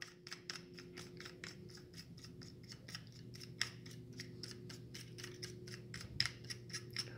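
Plastic wing nut being unscrewed from the threaded plastic shank of a reverse osmosis faucet, giving a quick run of light clicks as it turns.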